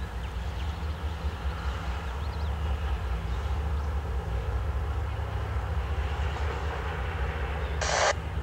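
Canadian Pacific diesel locomotives, led by a GE AC4400CW, running under load with a deep, steady engine drone as a freight train approaches. A short burst of hiss near the end.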